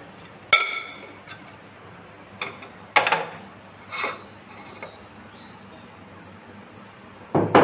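A glass bowl clinks against a dinner plate with a short ringing note as the two are turned over together. A few sharp knocks and taps follow as the bowl is set down upside-down and lifted off the moulded rice, with a louder knock near the end.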